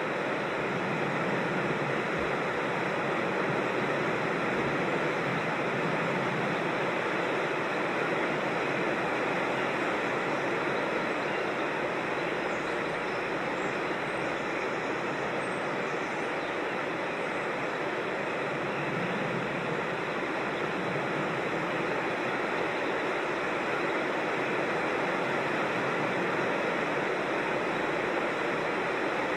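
Steady rushing of a creek tumbling over small waterfalls, an even, unbroken wash of water.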